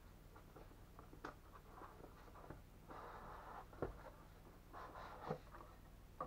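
Faint scraping and rustling of a cardboard box as its sleeve is slid off the inner tray, with scattered light taps and one sharper knock just under four seconds in.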